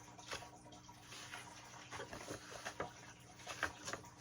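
Faint rustling and light irregular clicks of packaging and items being handled in an unboxing.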